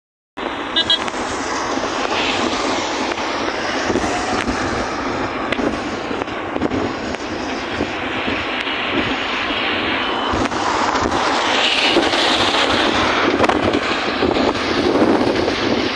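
Steady rushing roar of a river in flood, starting after a split-second dropout.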